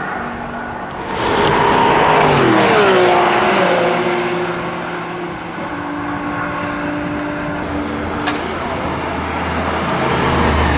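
Audi R8's 4.2 FSI V8 passing at speed, its engine note dropping sharply in pitch about two seconds in as it goes by, then running at steady revs as it pulls away. Near the end a deep low engine rumble comes in as a car rolls close by at low speed.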